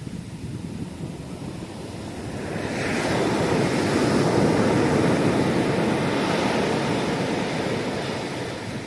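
Sea waves breaking and washing up a sandy beach: the surf swells about three seconds in and slowly fades near the end, with wind buffeting the microphone.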